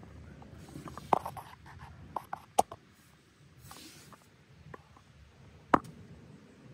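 Handling noise as the hand and phone brush against a combine's sheet-metal panels: scattered clicks and light knocks, with a short scrape a little before halfway, and three sharper clicks, the loudest near the end.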